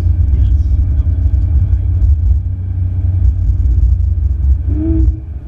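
Steady low rumble of a Ferrari 488 GTB on the move: its twin-turbo V8 mixed with road noise.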